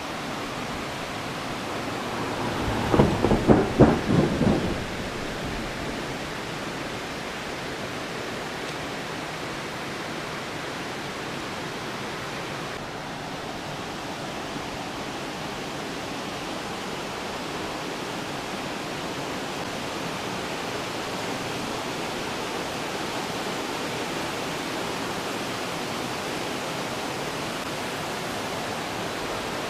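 Steady rush of river rapids tumbling over rocks below the bridge. About three seconds in, a louder rumble lasts about two seconds.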